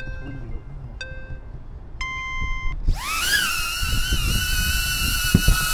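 HoverAir X1 palm drone taking off from an open hand: two short beeps a second apart and a longer beep, then its propellers spin up in a quick rising whine that settles into a steady high-pitched whine as it hovers. Wind rumbles on the microphone throughout.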